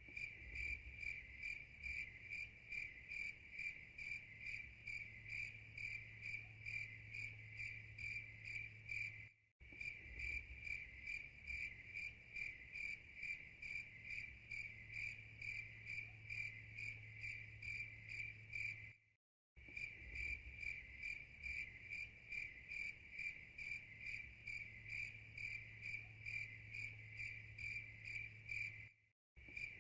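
Crickets chirping in a steady, even pulse, about three chirps a second. The sound drops out briefly twice and starts again, as a looped recording does.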